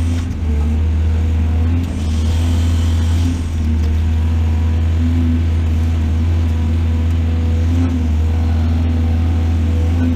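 Excavator's diesel engine running steadily, a constant low drone.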